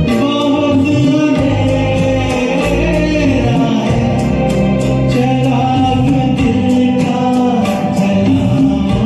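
A male voice singing a slow Hindi film song over a karaoke backing track with a steady beat, holding long notes that glide in pitch.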